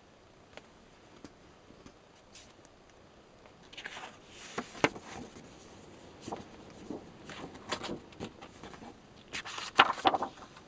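Paper and card pages of a journal rustling and crackling as they are handled and a card flap over a fold-out map is lifted, in short bursts with sharp clicks, starting about four seconds in and loudest near the end.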